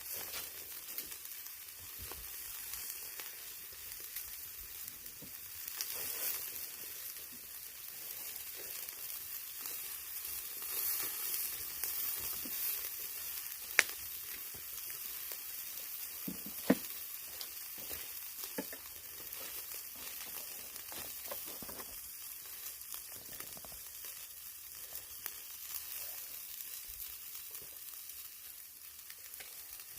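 Pork belly sizzling over a charcoal grill, a steady high hiss with fat crackling and popping. Two sharp, louder snaps stand out about halfway through, a few seconds apart.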